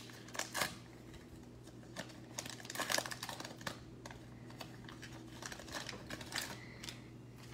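Hands handling a trading-card pack wrapper and the cards inside: irregular light clicks and crinkles, with a faint steady low hum underneath.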